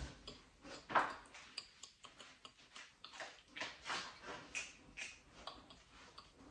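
Faint, irregular taps and rustles of a person dancing without music, with a sharper tap about a second in.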